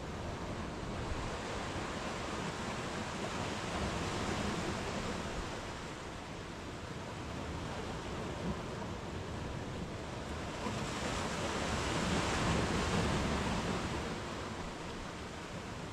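Small sea waves breaking and washing up a sandy beach, a steady surf wash that swells about four seconds in and again, more strongly, around twelve seconds in before easing back.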